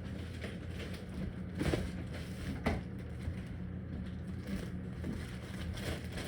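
Kitchen handling noises: a few light knocks and clatters over a steady low hum, the clearest knocks about two and three seconds in.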